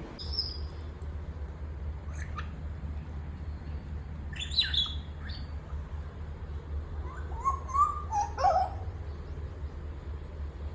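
African grey parrot in its cage giving soft, scattered chirps and short whistles, some gliding downward, with a cluster about halfway through and lower whistled notes a little later, over a steady low hum. These quiet cage calls are, per the owner, the sign of a lonely bird wanting attention.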